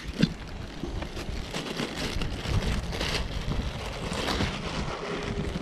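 Crinkly rustling of a clear plastic bag of fishing bait pellets as a hand digs into it, in uneven clusters, with wind buffeting the microphone.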